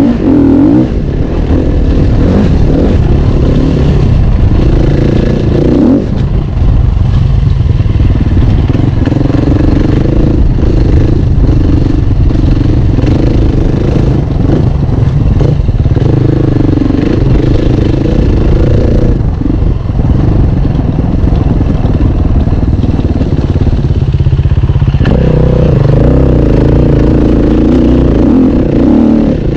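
Enduro dirt bike engine heard close up while riding, its note repeatedly climbing and dropping as the throttle is opened and eased, with knocks and rattles from the bike over rough ground.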